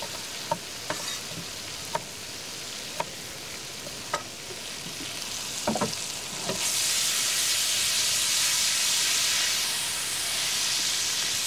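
Wild boar meat sizzling in butter and oil in a hot frying pan, with a knife chopping carrots on a wooden board about once a second over the first few seconds. About six and a half seconds in, the sizzle turns much louder as the pan is lifted and tossed.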